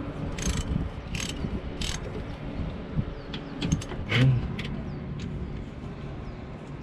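Hand tools working on the truck's metal oil-tank fittings: three short rasping, ratchet-like strokes about two-thirds of a second apart, then a scatter of light clicks and clinks over a low steady rumble.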